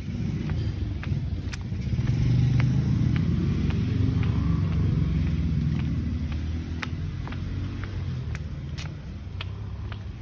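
A motor vehicle's engine rumbling as it passes on the street, swelling about two seconds in and slowly fading, with light footsteps ticking on a concrete pavement.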